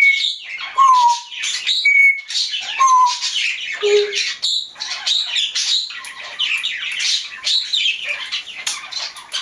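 African grey parrot chattering and squawking continuously, with short clear whistles mixed in, about one a second at different pitches in the first few seconds.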